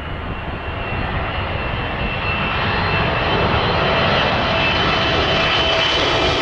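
Emirates Boeing 777-300ER on final approach with its landing gear down; the noise of its two GE90-115B turbofan engines grows louder as it comes closer, then holds. A steady high whine sits over the broad engine noise and a low rumble.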